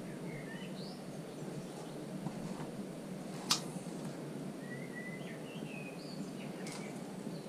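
Birds giving a few short chirps over a steady low background noise, with one sharp click about three and a half seconds in.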